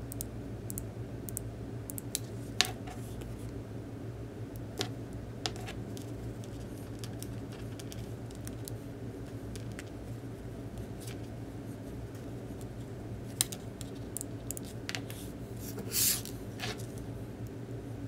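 Scattered light clicks and taps of small metal switch parts being handled and fitted by hand, with a brief scrape near the end, over a steady low hum.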